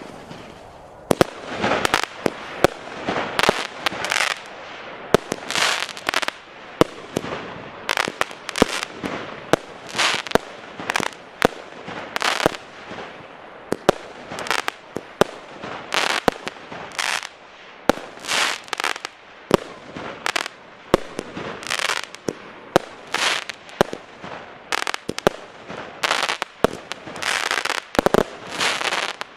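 A 25-shot, 20 mm consumer firework cake (Piromax PXB2212 Prime) firing in a steady run: sharp reports at about one to two a second, many followed by a short spray of hissing and crackling as the stars burst.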